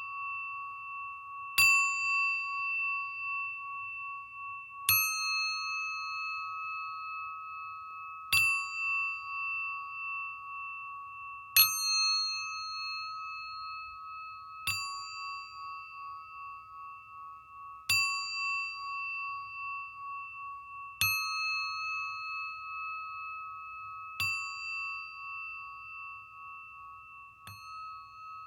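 A singing bowl struck about every three seconds, nine times. Each strike rings on in a steady, wavering tone that is still sounding when the next strike comes.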